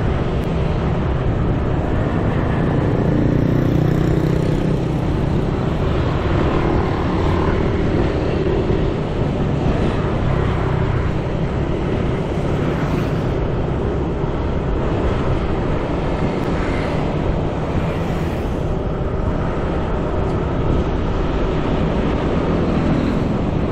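Steady road traffic noise, continuous and fairly loud, with a heavy low rumble.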